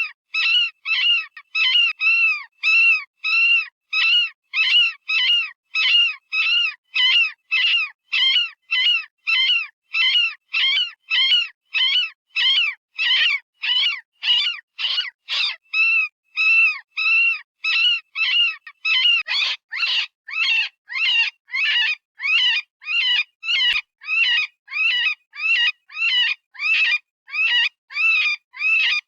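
Electronic predator-call recording of a rabbit distress scream, made by animal-sound software rather than a real rabbit. Short, shrill cries that rise and fall in pitch repeat without a break, about two a second.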